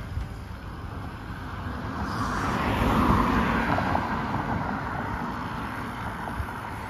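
A road vehicle, most likely a car, passes on the road alongside: its tyre and engine noise swells about two seconds in, peaks around three seconds and fades away. Low wind rumble on the microphone runs underneath.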